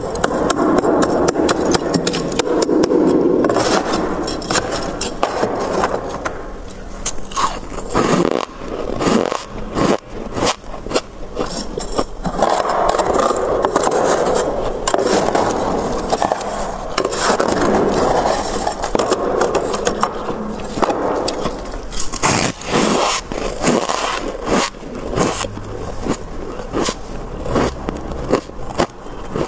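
A metal spoon scraping and digging into thick freezer frost: long stretches of gritty scraping broken by many sharp clicks as the frost breaks away.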